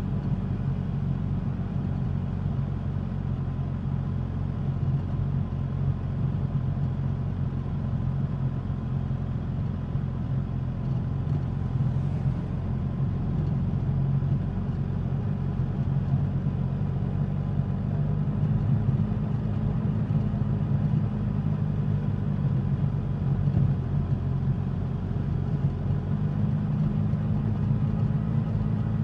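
Suzuki GSX-S1000's inline-four engine and exhaust running while the motorcycle is ridden at a fairly steady pace, the engine note shifting slightly in pitch with the throttle.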